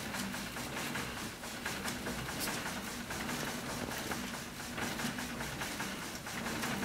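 Elliptical exercise machine being pedalled: a faint mechanical hum with light, scattered clicks.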